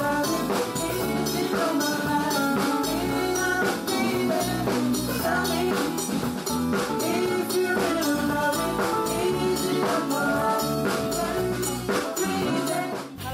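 Pop-rock band rehearsing a song: a drum kit keeping a steady beat, electric guitar, and a male voice singing into a microphone. The music cuts off sharply at the very end.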